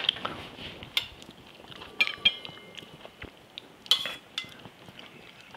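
Metal spoon clinking and scraping against a stainless steel saucepan while cooked peas are pushed out of it into a glass bowl. A few scattered clinks, some ringing briefly; the loudest comes about four seconds in.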